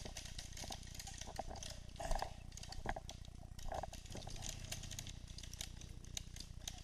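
Footsteps and rustling over the twig-strewn forest floor, many small irregular crackles over a steady low rumble, with a few faint distant calls.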